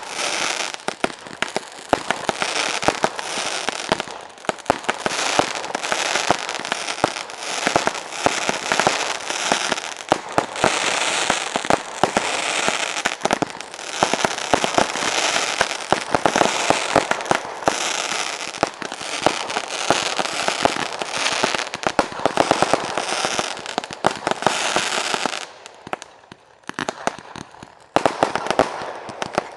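Professional fireworks display: a dense, continuous volley of rapid bangs and crackling. It thins to a brief lull near the end, then the bangs pick up again.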